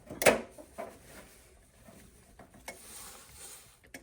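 Small clicks and handling noises from a water heater's circuit board being slid out and handled: one sharp click about a quarter second in, then a few fainter clicks.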